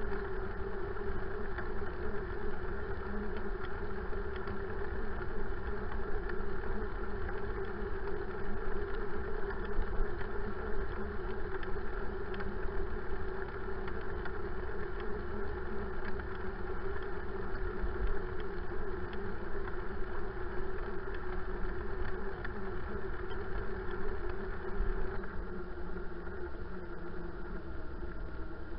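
Bicycle ride noise heard from a bike-mounted camera: steady tyre rumble on a tarmac path with wind on the microphone and a steady hum that weakens about 25 seconds in.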